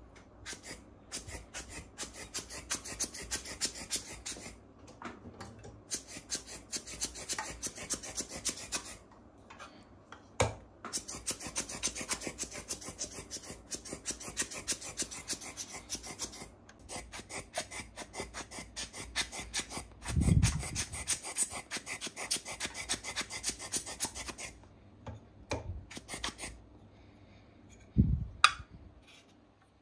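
Gemsy GEM7724E industrial overlock machine running with a rasping rattle, in stretches of several seconds that stop suddenly. Two dull thumps come near the end.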